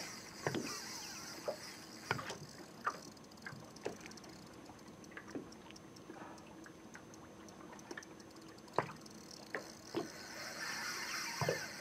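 Water lapping and slapping against a small boat's hull, with scattered soft knocks and splashes at irregular intervals.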